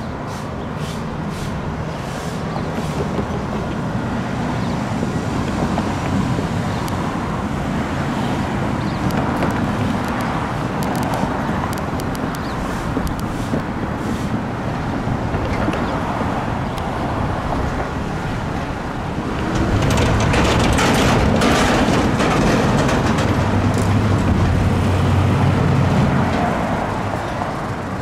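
Road traffic at a street railroad crossing: steady vehicle noise, with a louder vehicle passing close by about twenty seconds in and fading away near the end.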